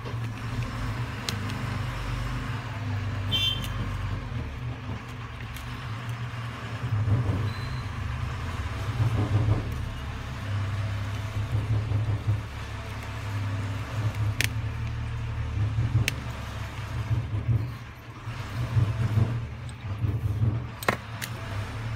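A steady low hum, with a few light clicks from a small screwdriver working the screws of a disassembled smartphone.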